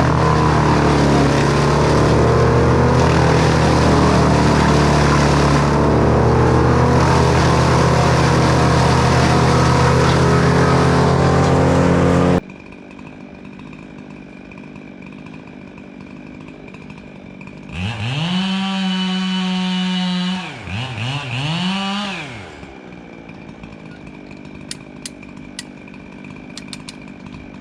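Echo chainsaw running at high speed, which cuts off abruptly about twelve seconds in. After a quieter stretch a chainsaw is revved up, held and dropped, then revved briefly once more, followed by a few light clicks.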